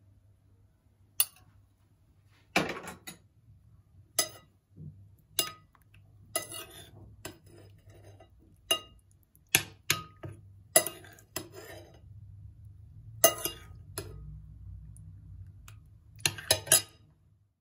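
A metal spoon clinking against a ceramic bowl while scooping stew: about a dozen sharp clinks at irregular intervals, with a quick cluster near the end.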